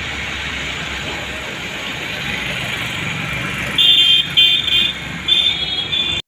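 Steady road traffic noise, then a vehicle horn honking in four short, high-pitched blasts in the second half.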